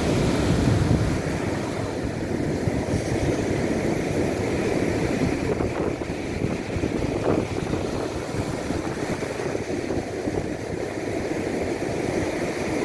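Strong wind rumbling on the microphone over the steady wash of rough surf.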